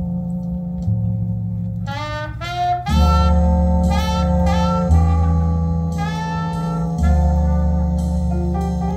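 Jazz record playing on a turntable through large floor-standing loudspeakers: a horn melody in short phrases over long, sustained bass notes.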